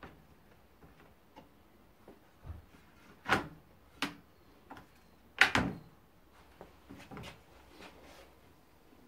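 A few separate knocks and clunks, the loudest about halfway through, as a cordless circular saw on its guide-rail adapter is handled and settled onto an aluminium track. The saw's motor is not running.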